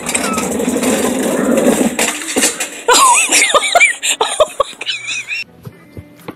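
A shopping cart rattling loudly down a wooden ramp, then a few sharp knocks as it crashes at the bottom, followed by people laughing and shrieking.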